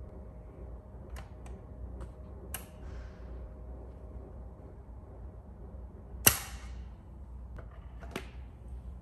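Clicks and one sharp clack from the record and changer of a Garrard AT-60 automatic turntable being handled, over a low steady hum. A few light clicks fall in the first three seconds. The loud clack comes about six seconds in with a brief ringing tail, followed by two more clicks near the end.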